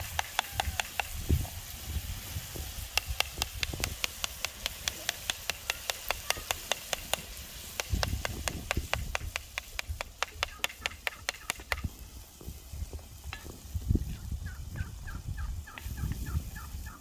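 Domestic turkey gobbling, a quick run of short repeated notes in the last few seconds. Before that comes a long series of sharp, evenly spaced clicks or taps, about four or five a second.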